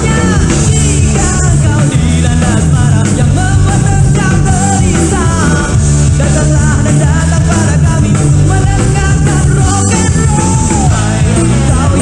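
Rock song by an Indonesian rock band, a studio recording with a lead singer over the full band.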